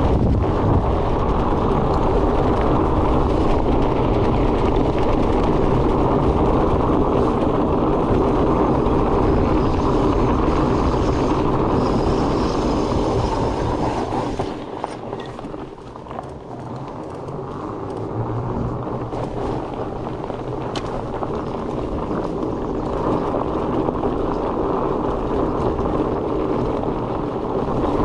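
Mountain bike riding at speed: steady wind rush on the microphone over the rumble of fat-bike tyres rolling on a dirt trail. It dips for a moment about halfway through, then builds again.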